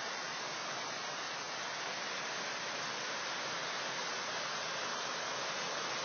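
Rushing white water of a waterfall and creek: a steady, even rush with no change in level.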